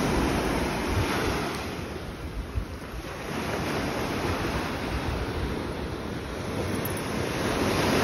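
Small ocean waves breaking and washing up the sand, swelling louder near the start and again toward the end, with wind buffeting the microphone.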